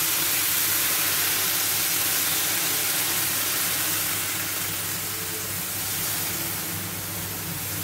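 Tap water sizzling and hissing on a hot metal bahulu mould as it boils off in steam, during the seasoning of a new mould; the hiss slowly eases after about four seconds. A cooker hood fan hums steadily underneath.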